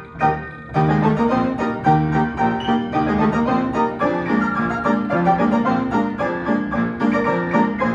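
Piano playing a march with a steady beat and several notes sounding together. The playing breaks off briefly just after the start, then resumes.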